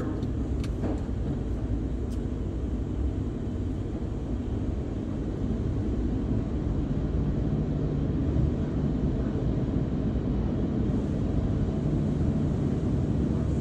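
Steady low rumble of tunnel car wash machinery, heard from inside a car's closed cabin.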